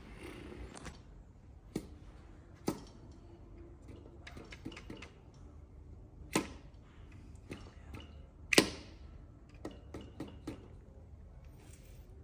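Scattered sharp clicks and metal knocks of tools and engine parts being handled during engine assembly, the two loudest about six and eight and a half seconds in.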